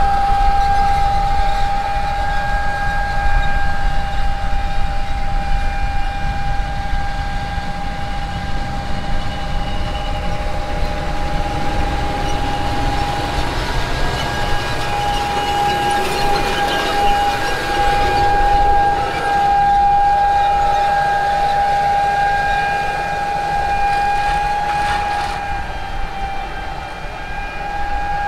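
A steady, high-pitched mechanical whine, one held tone with fainter overtones, over a low rumble.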